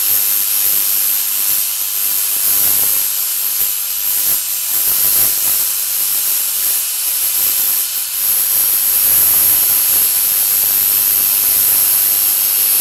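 Plasma cutter cutting through stainless steel plate: the arc and gas jet make a steady, loud hiss with a thin high whine above it.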